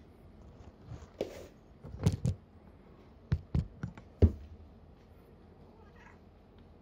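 About six short, soft knocks and taps over a little more than three seconds, with a brief rustle among them.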